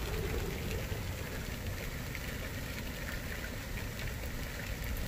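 Heavy rain falling steadily, a continuous hiss and rumble with no breaks.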